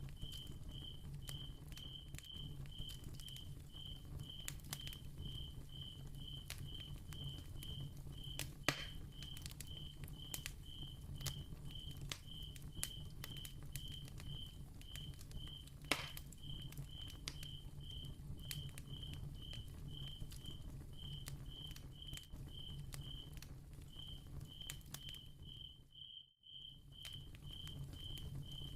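Crackling candle-flame ambience: scattered sharp pops and ticks over a low hum, with a cricket chirping steadily about three times a second. Two louder pops stand out, and the whole sound briefly drops out near the end.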